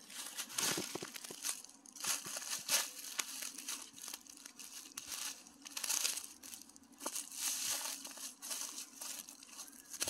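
Dry fallen leaves crunching and crackling underfoot in a run of uneven steps, starting suddenly after quiet.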